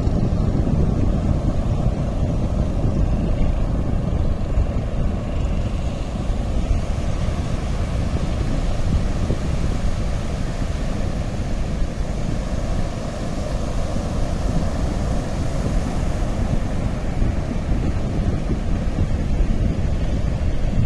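Steady low rumble of wind buffeting the microphone, mixed with the continuous wash of sea surf on the beach.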